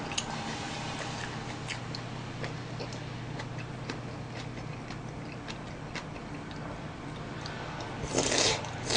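Close-up eating sounds: scattered small clicks from chewing and chopsticks against a bowl over a low steady hum, then a loud slurp of noodles near the end.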